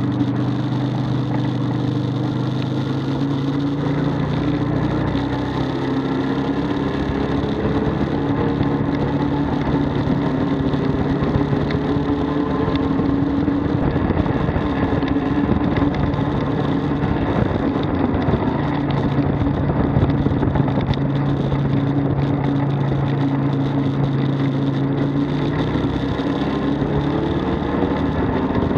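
Arctic Cat Wildcat 1000 side-by-side's big V-twin engine running under way, a steady low rumble whose pitch rises and falls a little as the throttle changes.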